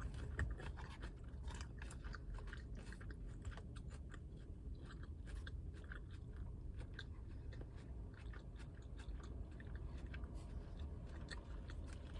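A person chewing a salad of crisp lettuce close to the microphone, with irregular small crunches, over a steady low hum.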